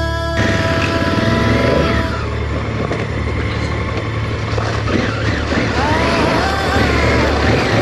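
Motorcycle engine running steadily while riding, with a low rumble under a dense rush of wind and road noise.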